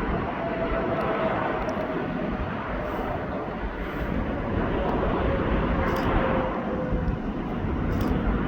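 Jet airliner's engines passing close by: a broad rushing noise with a whine that slowly drops in pitch.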